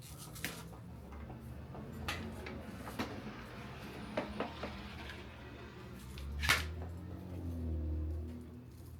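Plastic parts of a Hoover Commercial cordless upright vacuum being handled and fitted together: scattered clicks and knocks, a sharp click about six and a half seconds in, then a low rumble.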